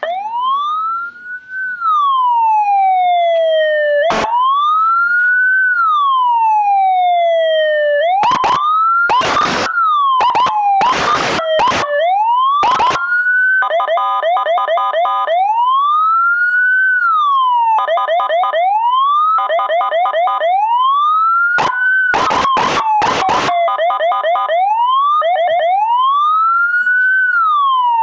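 Custom 2-in-1 electronic siren with Whelen tones sounding a slow wail that rises and falls about every four seconds. The wail is broken twice by bursts of loud, choppy pulses and by stretches of a fast-stepping warble, as the siren cycles through its tones.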